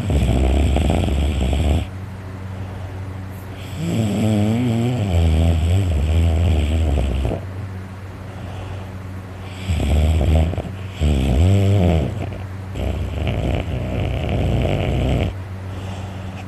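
A sleeping man snoring loudly and heavily: five drawn-out snores, the longest about three seconds with a wavering pitch, separated by quieter breaths over a steady low hum.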